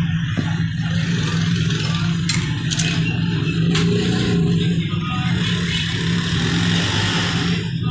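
A steady low mechanical hum with a continuous background noise, and a few light clicks and scrapes as a protective film is smoothed and lifted on a smartphone's back.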